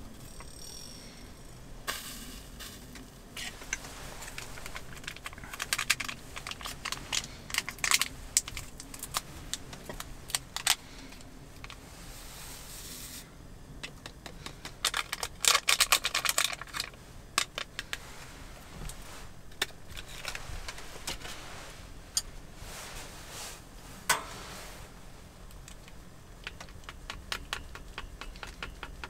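A spoon clinking and scraping against a small metal pot of milk on a gas stove, in irregular light clicks. About halfway through there is a denser run of clicks and rustle as a stick packet is emptied into the milk and stirred in.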